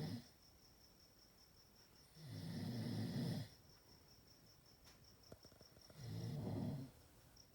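Chihuahua snoring in its sleep: two low, rasping snores about three and a half seconds apart, each lasting around a second, with the end of another at the very start.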